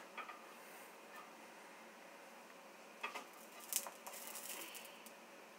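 Metal spatula scraping and clicking against a nonstick frying pan as it is worked under a cooking pancake: a few light clicks just after the start and a cluster of sharper scrapes about three to four seconds in, over a faint steady hiss.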